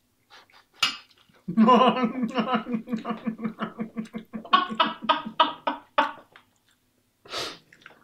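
A man laughing hard in a long run of rhythmic, evenly pitched pulses, with a short sharp breath or cough near the end.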